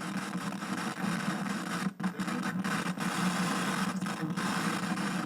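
Old television's static hiss from a channel with no signal, over a steady low hum. The hiss drops out briefly a few times between about two and four and a half seconds in.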